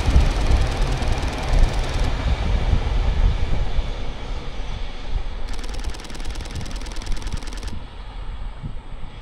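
A locomotive-hauled train of Seibu 2000-series electric cars running past on the rails, its wheels rumbling with a rapid even clatter. The sound fades steadily as the train moves away.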